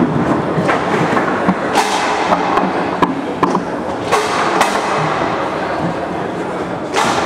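Competition foosball table in play: steel rods sliding and rattling in their bearings and plastic figures knocking the ball, a dense irregular clatter of knocks. A louder sharp knock comes about seven seconds in.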